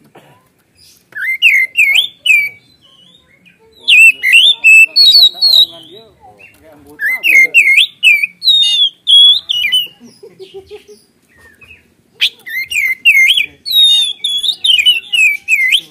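Oriental magpie-robin singing loudly in four bursts of fast, varied whistled phrases that warble up and down, with short pauses between them.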